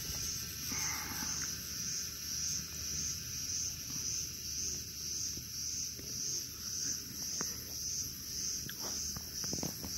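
A steady chorus of insects chirping, high-pitched and pulsing about twice a second, over a low outdoor rumble. A brief higher call comes about a second in.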